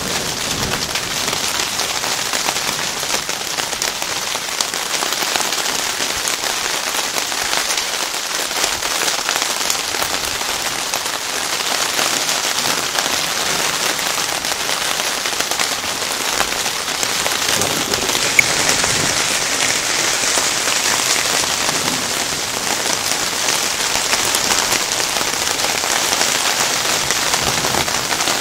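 Summer-storm rain falling steadily on a surface, a dense patter of drops that grows slightly louder past the middle. One sharp click stands out about two-thirds of the way through.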